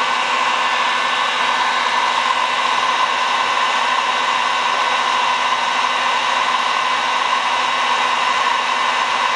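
Electric heat gun running steadily, its fan blowing hot air in an even rush with a faint steady motor whine.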